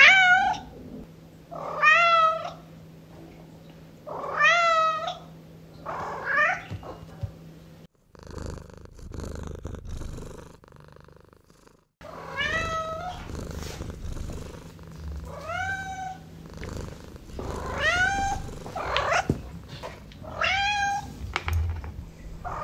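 Domestic cat meowing over and over, about ten drawn-out meows, each rising and then falling in pitch. For a few seconds in the middle, the meows stop and a cat purrs.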